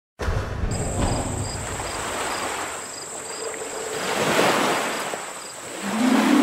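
Intro sound effect: a rushing, surf-like noise that swells and fades in slow waves, with a thin steady high tone over it; a low melody comes in near the end.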